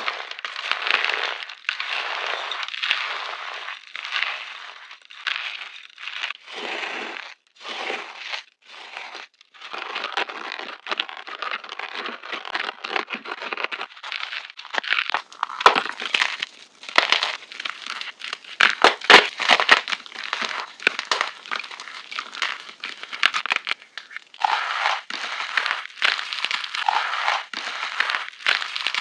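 Fresh blocks of gym chalk being crushed and crumbled, with a run of crunches and crackles, an echo effect added to the sound. The first several seconds hold separate crunches, after which the crackling grows denser, with sharp snaps.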